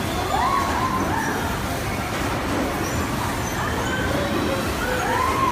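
Steady, even noise of a spinning ant-themed kiddie carousel and the busy indoor play area around it. Two short rising-then-falling high sounds stand out, one about half a second in and one near the end.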